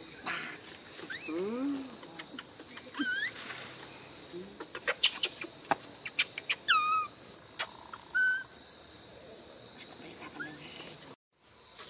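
Steady high insect buzz, with short chirping animal calls that slide up and down in pitch scattered throughout and several sharp clicks around the middle. The sound drops out completely for a moment near the end.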